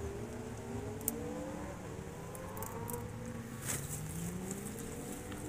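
Several motorcycle engines from a passing procession of motorbikes, revving with overlapping rises and falls in pitch. Two brief clicks sound over them, about a second in and just before the four-second mark.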